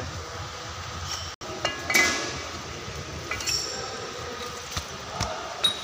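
Steel differential parts clinking and knocking together as the flange is seated on the shaft of a truck's inter-axle differential: a few sharp metallic strikes with brief ringing, the loudest about two seconds in.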